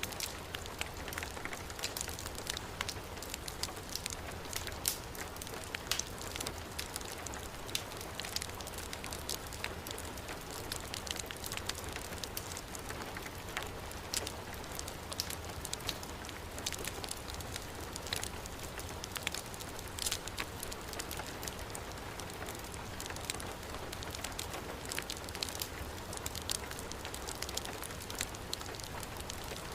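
Steady heavy rain mixed with a wood fire crackling, frequent small sharp pops over an even hiss and a low rumble.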